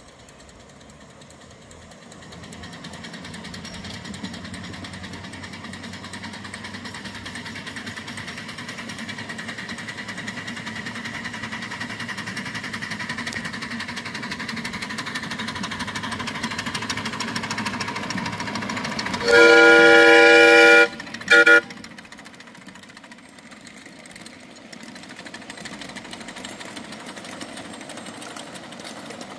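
Godshall H10 2-8-0 miniature live-steam locomotive pulling a train, running with a fast, even beat that grows louder as it approaches. About two-thirds of the way in, its whistle sounds one long, loud blast and then a short toot, and the train runs on more quietly.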